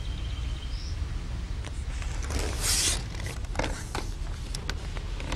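Movement noise as an angler rises from his seat and lifts a long fishing pole: a rustling swish about halfway through, then a few light clicks and knocks, over a steady low rumble.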